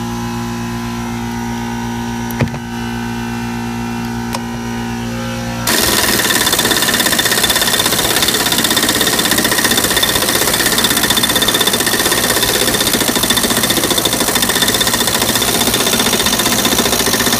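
Steady motor hum, typical of an air compressor running, with a single click about two and a half seconds in. About six seconds in, a pneumatic impact wrench starts hammering on the mower deck's spindle pulley nut and runs without a break for about twelve seconds; the air pressure is low, and the pulley is left still loose.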